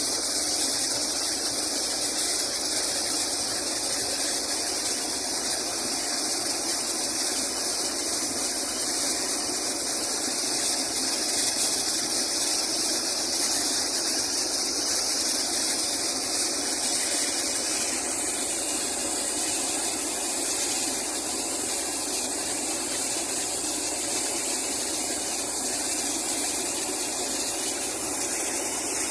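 Steady rushing hiss of compressed air and water gushing out of a borewell as it is flushed clean with an air compressor.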